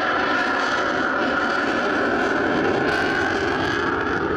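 Saab JAS 39 Gripen fighter's jet engine during a display flight, heard as a steady rushing noise that holds an even level.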